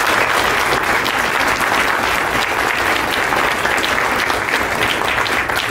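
Audience applauding steadily, a dense, even clapping that begins just before and fades shortly after.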